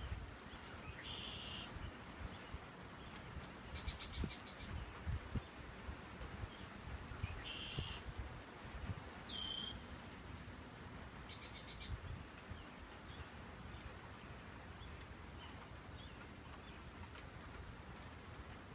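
Wild songbirds calling: several short buzzy trills and quick high down-slurred chirps, thinning out after the first half, over a steady low rumble and hiss.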